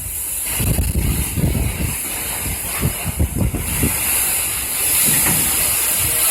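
Hurricane Irma's wind gusting in uneven low rumbles over a steady high hiss of the storm.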